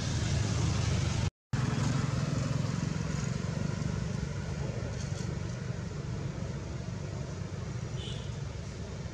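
Steady low background rumble with a brief dropout about a second and a half in.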